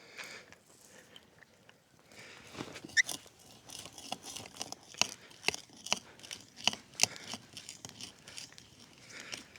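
Hand drill's 1-inch bit boring into a frozen tulip poplar log, giving irregular crunching, cracking clicks as it cuts the wood. It starts about two seconds in, with a few sharper snaps.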